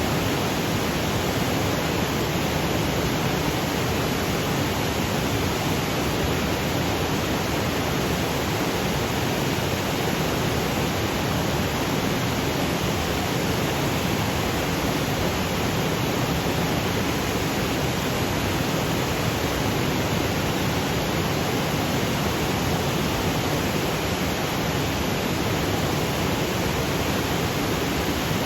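Waterfall cascading over granite boulders: a steady, unbroken rush of falling water.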